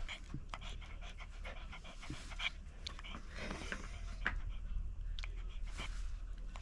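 Shih Tzu panting in quick, short breaths over a steady low hum.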